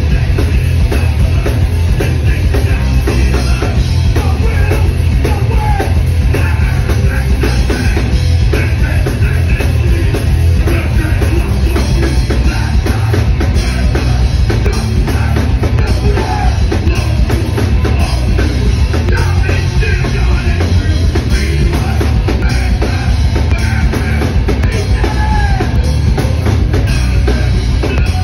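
Hardcore punk band playing live at full volume: fast drum kit, distorted electric guitar and bass, with the singer shouting into the microphone. The low end is heavy and booming.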